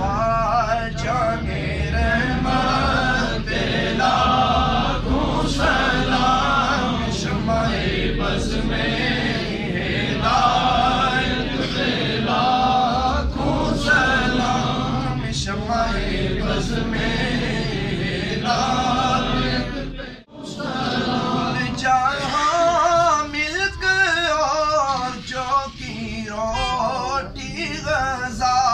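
A man chanting Islamic devotional verses, salawat on the Prophet, in a long, wavering, ornamented melody. The chant breaks off for a moment about twenty seconds in, then carries on.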